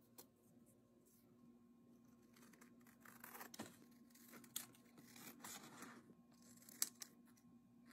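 Faint scissors cutting through a thin printed card sheet: snips and paper rustling from about two and a half seconds in to about six seconds, with a sharp click near the end.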